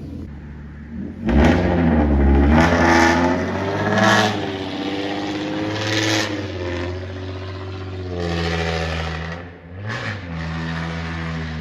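An engine revving up and down in several surges over a steady running hum.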